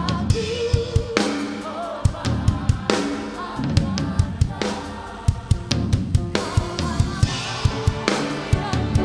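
Live worship band playing a steady beat on a full drum kit, with bass drum, snare and rimshot hits, under sung vocals of an Indonesian worship song.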